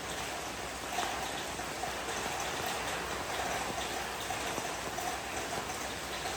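Steady rain falling, an even patter with many small drop ticks.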